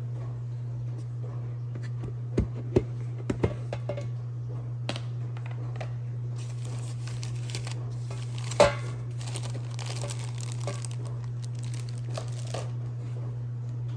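Packaging being handled and opened, crinkling and tearing for several seconds in the middle. There are a few sharp clicks a couple of seconds in and one louder knock about eight and a half seconds in, over a steady low hum.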